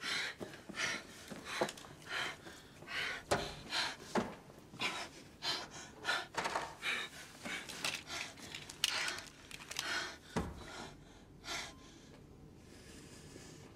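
A woman panting and gasping heavily, nearly two breaths a second, which die away about eleven seconds in. One dull thud sounds shortly before the breathing stops.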